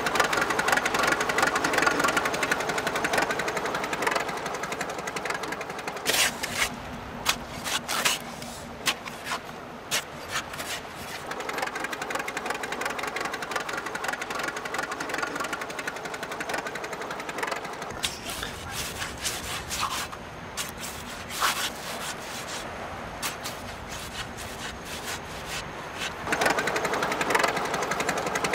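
Machinery clattering over a steady noisy rumble, with many irregular knocks and clicks. It is louder for the first few seconds and again near the end.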